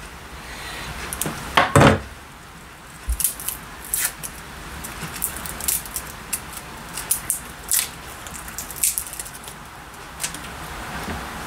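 Kitchen handling sounds: irregular light clicks and rustles of utensils and food being worked on a counter, with one louder knock about two seconds in.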